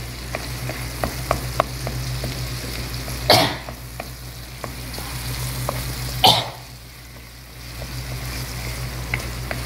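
Beaten eggs frying in oil in a black wok, with a wooden spatula stirring and scraping the pan in frequent short ticks and scrapes over a low sizzle. Two louder short noises stand out, about three and six seconds in.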